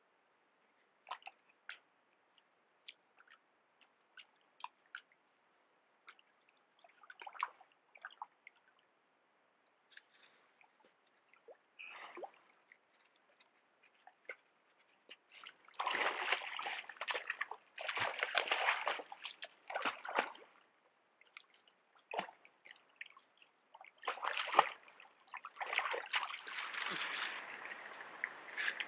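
Black bear wading in a shallow creek pool: water sloshing and splashing around its legs, with scattered small drips and splashes at first, then two heavier bouts of splashing in the second half.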